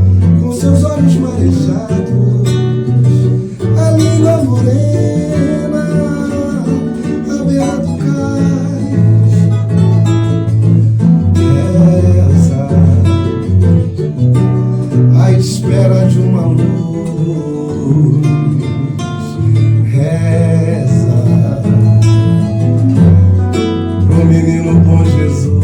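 Samba-pagode song with acoustic guitar or cavaquinho strumming, a bass line, percussion and a male lead vocal.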